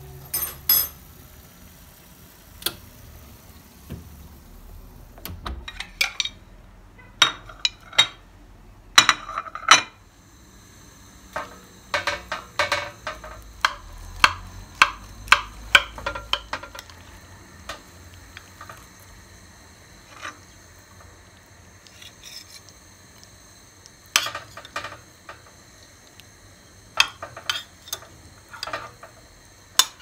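Kitchenware clinking and scraping in several clusters of short clicks and knocks. A glass baking dish is drawn off a metal oven rack and set down on the stovetop, and a metal spatula scrapes against the glass dish as it cuts into baked pasta.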